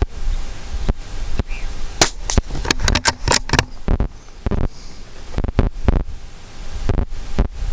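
Sharp cracks and clicks from a Vudoo .22 LR rimfire rifle being shot and handled, with a quick cluster of clicks about two to three seconds in.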